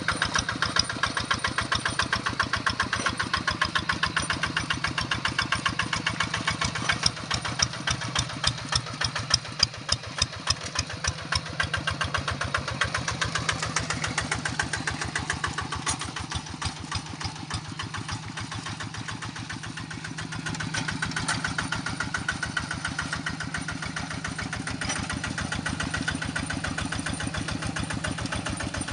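Large rice-field tractor's engine running under working load with a steady firing beat; it eases off for a few seconds past the middle, then picks up again about two-thirds of the way through.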